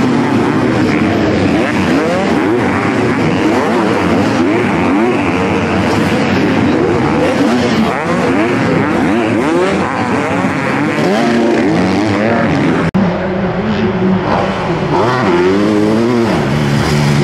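Several 250 cc motocross bikes' engines revving hard as they race past, with many overlapping pitches rising and falling as riders open and close the throttle. The sound cuts off abruptly about thirteen seconds in and picks up again at once.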